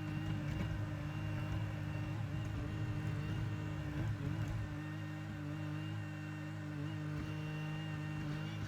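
Diesel engine of a Bobcat E42 mini excavator running steadily during digging. There are uneven knocks and changes in load through the first few seconds, and it settles to a more even drone after about five seconds.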